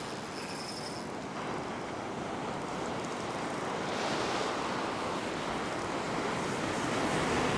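Ocean surf breaking and washing up the beach, a steady rush that swells gradually louder toward the end as a wave breaks close in.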